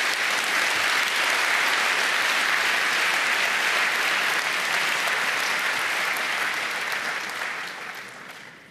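Audience applauding in a large hall at the end of a talk, steady and then dying away near the end.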